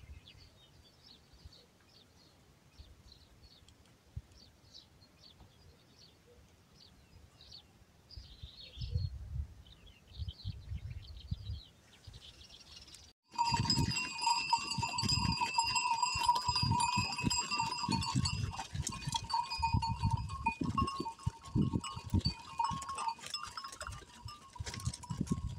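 Faint bird chirps at first. About halfway through, after a sudden change, many livestock bells clank and ring continuously over low thumps from an animal herd on the move.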